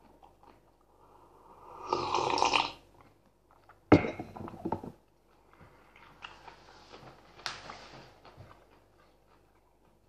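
A man sipping hot tea from a mug: a noisy slurp about two seconds in, then a sharp click about four seconds in, followed by soft mouth and handling noises.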